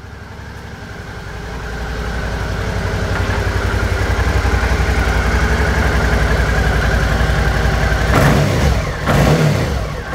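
Suzuki V-Strom 650's 645cc V-twin engine idling steadily after a start-up, its note growing louder over the first few seconds and then holding. Near the end the steady idle gives way to louder, uneven noise.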